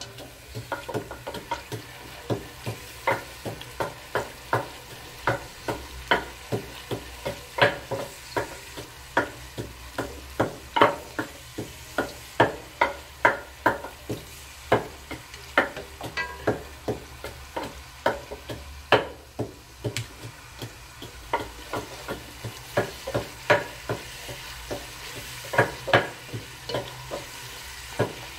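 A spatula stirs masala frying in oil in a granite-coated pot, knocking and scraping against the pot in irregular strokes about one or two a second, over a steady sizzle.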